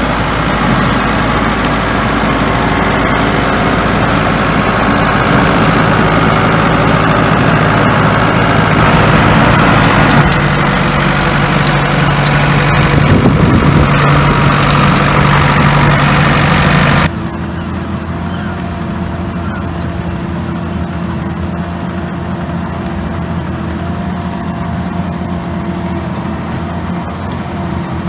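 Ford 7610 tractor's diesel engine working under load, with the carrot topper behind it clattering. About two-thirds of the way through, a cut brings a quieter, steadier engine drone from an ASA-Lift self-propelled carrot harvester at work.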